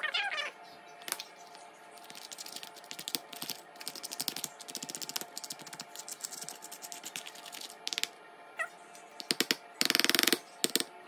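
Metal spoon stirring and scraping a soft, creamy mixture in a plastic tub: a steady run of quick, light clicks and scrapes, with a short, louder rapid clatter about ten seconds in.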